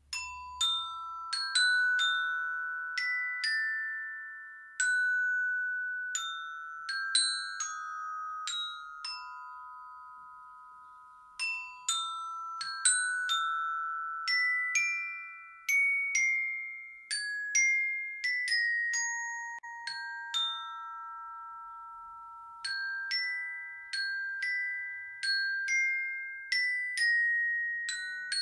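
Glockenspiel playing a slow melody, one struck note on its metal bars at a time, each note ringing high and metallic and fading slowly into the next.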